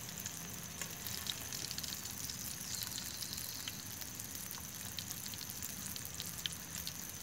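Boga fish fillet frying in hot oil in a mess-tin pan: a steady sizzle with scattered small crackles of spattering oil.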